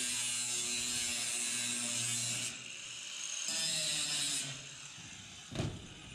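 Angle grinder with a cutoff wheel cutting into the end of a steel deck panel: a high cutting noise over the motor's whine, breaking off about two and a half seconds in, cutting again for about a second, then the motor winding down. A short knock near the end.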